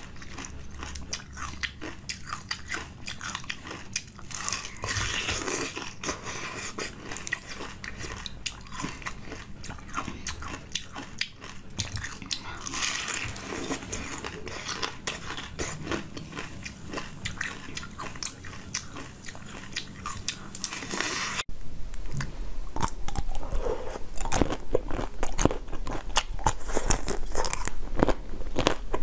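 Close-up crunching of ice with basil seeds frozen in it, being bitten off and chewed in repeated crisp cracks. About two-thirds of the way through the sound cuts abruptly to louder biting and crunching of another food.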